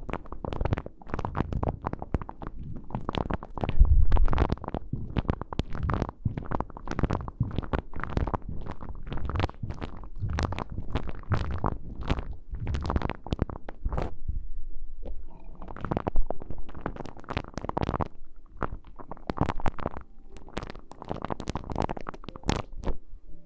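Close-up ASMR rustling and rubbing right on the microphone: dense, irregular crackles with muffled low thumps, briefly pausing about two thirds of the way in.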